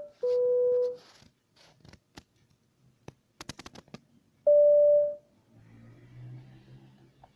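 Airliner-style cabin chime: a steady electronic tone, then a quick run of about half a dozen clicks, then a single slightly higher tone.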